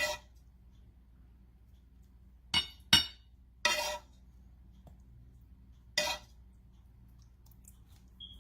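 Dishes clinking in the kitchen: five sharp clinks of hard crockery or utensils, two close together about two and a half seconds in and one slightly longer, ringing one just after.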